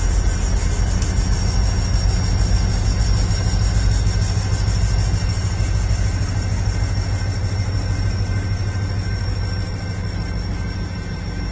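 A consist of CP Rail EMD SD40-2 diesel-electric locomotives running past slowly: a steady, heavy engine rumble that eases a little near the end.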